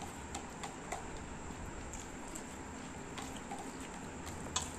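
Quiet eating sounds: fingers mixing rice and curry on plates and chewing, with faint scattered ticks and one sharper click near the end.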